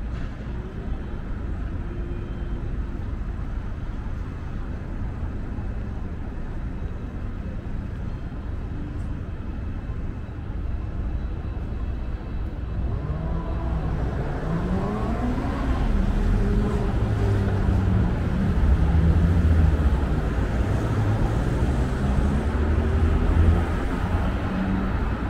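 City street ambience of road traffic: a steady low rumble of passing cars, growing louder about halfway through as vehicles pass close by.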